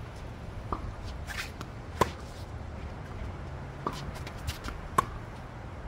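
Tennis ball being hit and bouncing on a hard court: four sharp pops, the loudest about two seconds in and again near the end.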